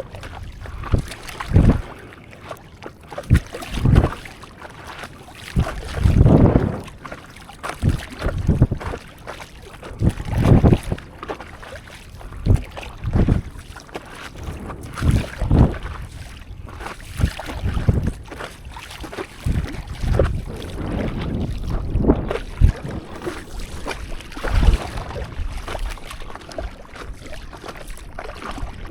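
Water sloshing and splashing around a stand-up paddleboard at sea, in surges about every two seconds, with wind buffeting the microphone.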